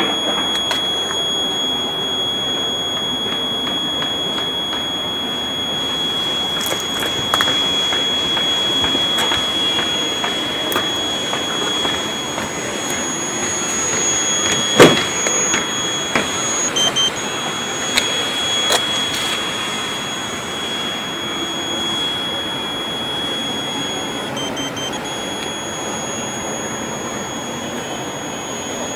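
A steady high-pitched electronic tone like a buzzer, cutting out briefly twice in the second half, over a steady hiss. Scattered clicks and knocks sound through the middle, the loudest a sharp knock about halfway through.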